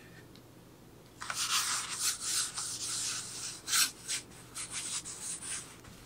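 Paintbrush bristles brushing white paint onto a bare plywood board. A quick run of back-and-forth strokes starts about a second in and is followed by several shorter, separate strokes near the end.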